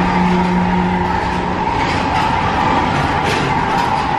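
PeopleMover ride car running along its track: a steady rolling and rushing noise with a steady whine over it, and a lower hum that stops about a second and a half in.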